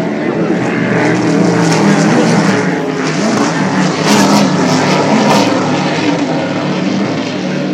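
Racing powerboat engines droning steadily, several engine tones layered together. A few brief rushing noises come in around four to five seconds in.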